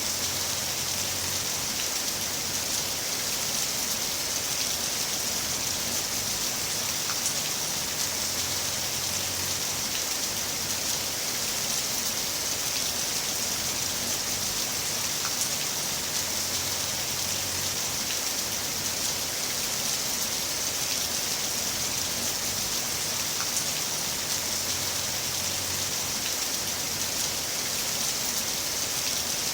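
Heavy rain falling in a steady, even hiss, with an occasional faint drop tick.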